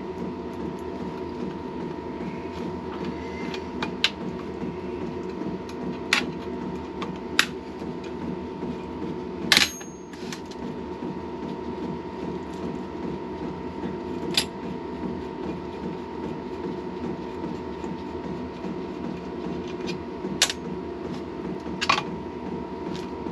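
Whitworth spanners clinking and knocking now and then against the engine's nuts and bolts as they are tried for fit, the loudest knock about nine and a half seconds in, over a steady workshop hum.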